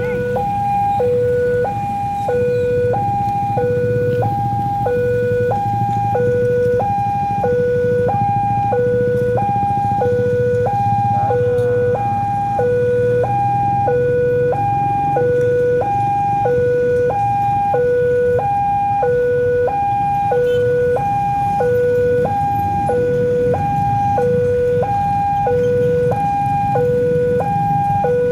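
Railway level-crossing warning alarm sounding with the barriers down, signalling an approaching train. It is a steady electronic two-tone signal that alternates evenly between a low note and a high note, about one low-high cycle a second.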